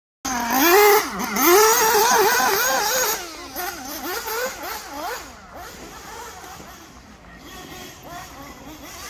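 Radio-controlled cars driving on a track, their motors whining up and down in pitch with the throttle. Loudest in the first three seconds, then fainter.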